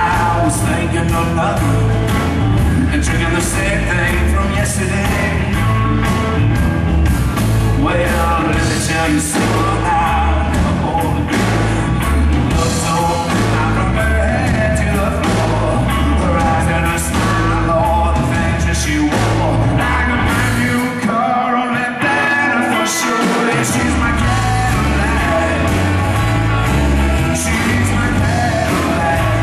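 A live blues band playing through a PA: electric guitar, drum kit and saxophone, with a singing voice. The bass end drops out for about two seconds past the middle of the piece, then the full band comes back in.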